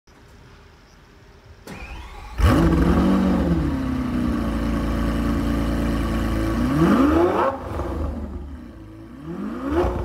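Lamborghini Aventador SVJ's V12 on its stock exhaust starting up. It cranks briefly, catches with a sharp flare about two and a half seconds in, then settles into a steady high idle. Two quick throttle blips follow in the second half, each rising and falling in pitch.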